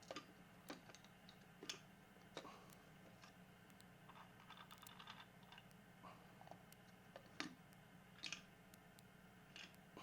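Faint, irregular clicks and light knocks from a puzzle box being handled as its internal sliding pins are moved back into the middle to reset the lock, with a quick patter of small clicks about halfway through.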